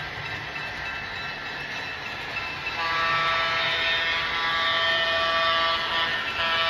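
Sound system of a model diesel passenger locomotive, an N de M F-unit, blowing its chime horn over a steady background hiss. One long blast starts about three seconds in, and a second begins just before the end.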